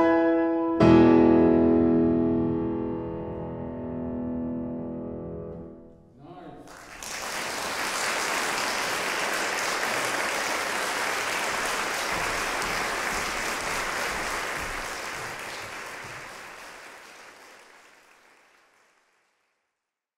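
Bösendorfer grand piano's final chord, struck and left to ring until it dies away. Then an audience applauds steadily for several seconds and the clapping fades out.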